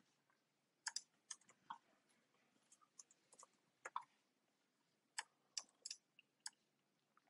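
Faint, irregular keystrokes on a computer keyboard: scattered single clicks and short runs of taps, with quiet gaps between them.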